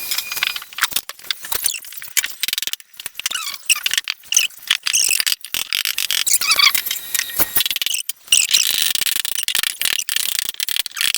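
Squeaking and clicking from hand assembly of a flat-pack wooden drawing table, in short irregular bursts throughout.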